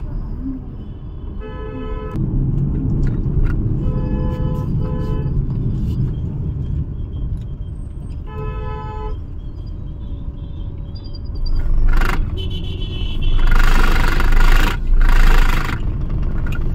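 City traffic heard through a car windscreen: a steady rumble of engines, with vehicle horns honking four short times in the first nine seconds. Several loud rushing bursts follow in the last few seconds.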